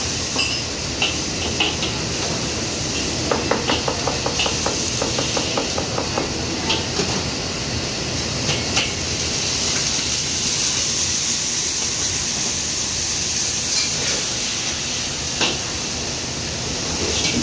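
Stir-frying in a wok over a gas wok burner, with the burner and hood running steadily. A quick run of metal ladle clinks against the wok comes about three to six seconds in, followed by a louder hiss of sizzling and steam from about ten seconds on.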